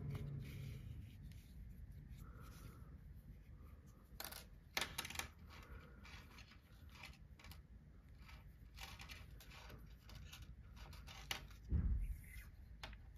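Faint scratching and rustling of yarn being drawn through crocheted fabric while a nose is stitched onto an amigurumi bunny by hand, with a few sharp clicks about four to five seconds in and a dull thump near the end.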